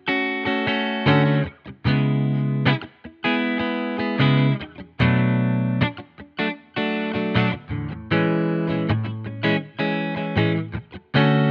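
Donner Hush-X headless electric guitar played with a clean tone on its passive pickups: chords strummed and left to ring, a new chord every second or two, with short strokes in between.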